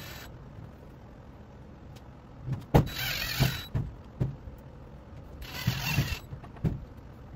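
Cordless drill driving self-drilling screws into the sheet-metal duct to fix a round damper collar: two short runs of the drill, about three seconds in and again near six seconds, with a few knocks between them.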